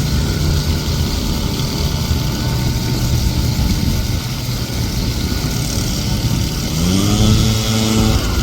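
A motor vehicle engine running steadily, its pitch rising briefly near the end and then holding.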